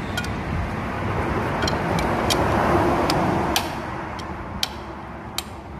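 A passing vehicle, its noise swelling to a peak about halfway through and then fading, with a few sharp clicks scattered through it.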